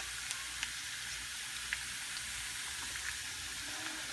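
Garlic and ginger sizzling in hot olive oil: a steady frying hiss with a few small pops of spitting oil.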